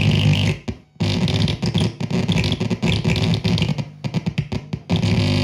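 Homemade Ciat-lonbarde circuit synth played by fingers on brass touch contacts: a buzzy, noisy electronic drone. It cuts out about half a second in, then comes back choppy and stuttering, with several short dropouts near the end before it steadies.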